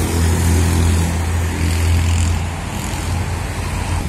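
Road traffic on a busy multi-lane road, with a pickup-truck songthaew passing close by: a steady low rumble of engines and tyres that eases a little about two and a half seconds in.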